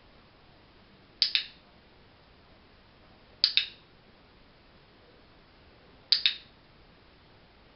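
Dog-training clicker clicked three times, each a quick double click-clack of the press and release, a couple of seconds apart. Each click marks the dog's move onto the towel during shaping.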